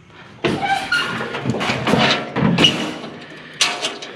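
Scrap metal clanking and clattering as pieces are handled and set down, with a few short metallic rings among the knocks.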